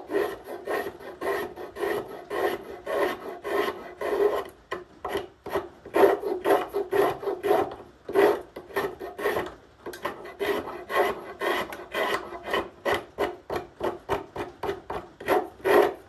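Drawknife shaving a piece of wood clamped in a shaving horse: a run of short scraping strokes, about two a second, quickening in the second half.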